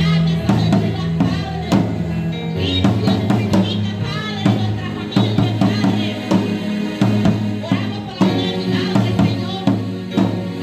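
Christian worship music with a full drum kit playing a steady beat of kick, snare and rim hits over a held bass line and sustained pitched parts.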